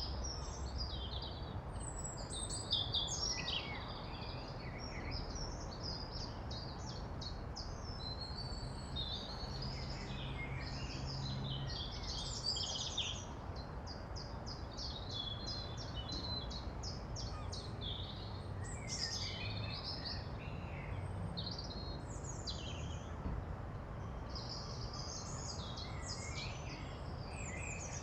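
Several songbirds singing at once, overlapping chirps and trills, with a long trill of rapid repeated notes in the middle. Under them runs a steady low background rumble.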